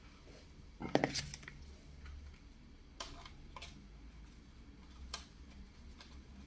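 Hard plastic clicks and taps from an Asus GT-AX11000 router and its antennas being handled while the antennas are fitted: a cluster of clicks about a second in, then single clicks every second or so.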